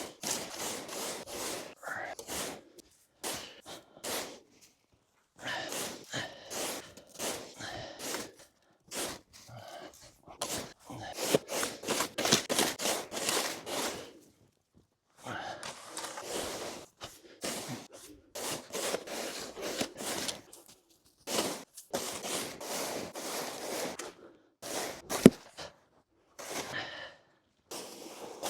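Snow being cleared by hand: repeated crunching and scraping strokes in irregular bouts with short pauses, and one sharp knock about 25 seconds in.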